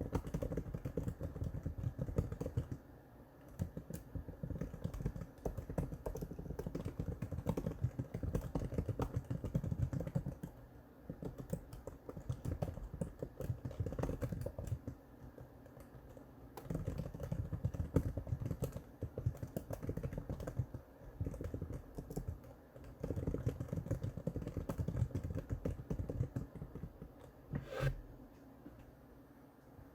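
Typing on the Apple Magic Keyboard for the 11-inch iPad: fast runs of soft key clicks broken by pauses of a second or two, with one sharper knock near the end.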